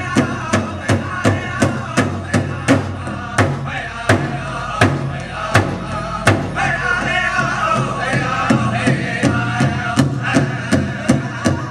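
Powwow drum group: a large drum struck in a steady fast beat, about three strokes a second with some strokes louder than others, while the singers chant over it, their voices strongest midway through.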